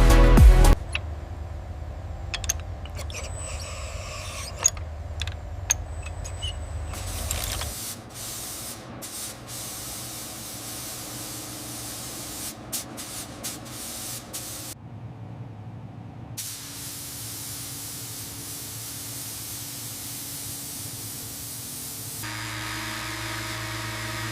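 Spray hissing in several short cut-together stretches, with scattered clicks; music ends about a second in.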